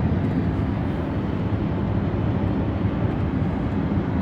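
Steady road and engine noise heard inside a moving car's cabin: a low, even rumble with no distinct events.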